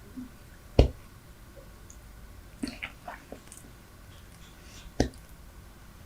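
Super Bubble bubble gum chewed close to the microphone: soft wet squishing, with a few small clicks a little after two and a half seconds in and two loud sharp clicks, one about a second in and one about five seconds in.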